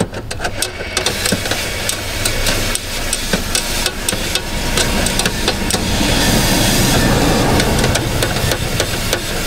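Compressed-air undercoating spray gun hissing as it fogs Fluid Film oil into a truck door's drain hole. The hiss swells from about halfway in and is loudest near the end. A run of sharp clicks and taps comes first, and a steady low hum runs underneath.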